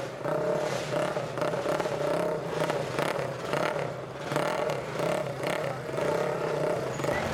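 A vintage motorcycle engine running steadily at idle, its note swelling and dipping slightly every second or so.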